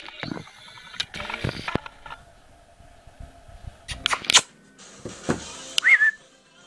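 Handling noise as a puppy is picked up and set down on a felt-covered surface: scattered sharp clicks and rustles, the loudest a quick cluster about four seconds in, and one short high squeak near the end.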